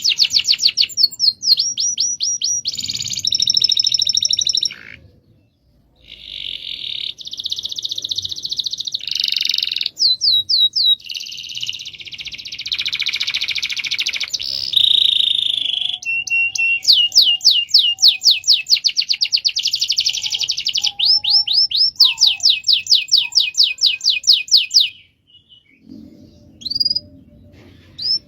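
Domestic canary singing long rolling trills of rapid repeated chirps, with a short break about five seconds in and a pause near the end.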